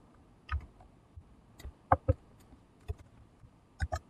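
Computer keyboard keystrokes: about eight sparse, irregular key clicks, the loudest pair close together about two seconds in.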